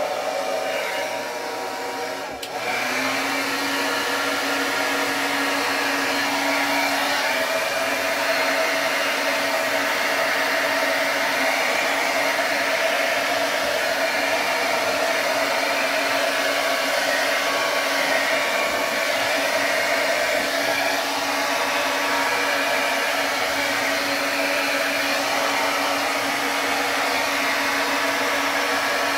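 Handheld hair dryer running steadily: a rushing blast of air with a motor whine. It gets louder about two and a half seconds in and holds there.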